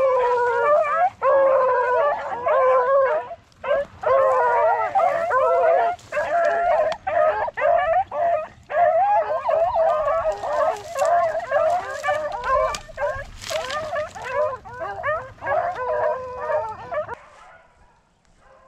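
A pack of rabbit-hunting hounds baying and howling together in full cry as they run a rabbit's track, many voices overlapping without a break. The pack falls quiet suddenly near the end.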